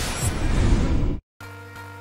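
A loud rushing whoosh-like transition sound effect lasts about a second and cuts off suddenly. After a brief gap, quieter background music with steady held tones and a light even beat comes in.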